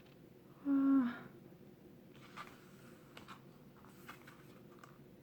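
A brief hummed 'mm' from a person about a second in, then faint scattered ticks and soft rustles of photobook pages being handled and turned.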